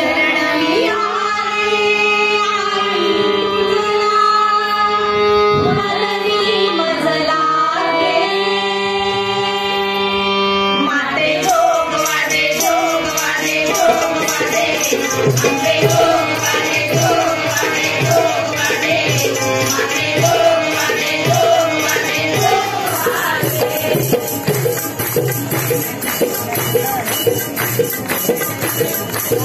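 Live Marathi devotional folk song (a jogwa) with voices singing over held instrumental notes. About 11 seconds in, a fast steady beat of drums and jingles comes in and carries on, growing brighter near the end.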